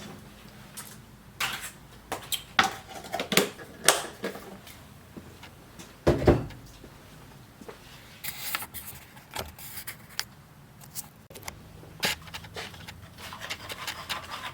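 Scattered kitchen handling sounds: clicks and clinks of utensils and cookware, with a heavier thump about six seconds in and a short run of small rattles soon after.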